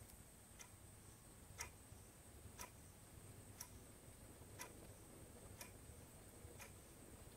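A clock ticking faintly and evenly, once a second, in an otherwise near-silent room.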